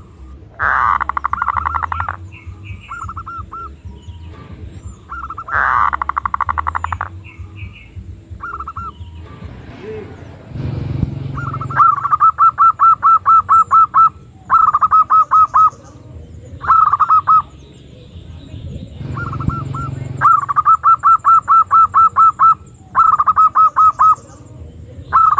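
Female zebra dove (perkutut) lure call. It opens with two short rolling trills, then bouts of quick repeated cooing notes at about five a second. A low rumble comes in twice, about halfway and again later.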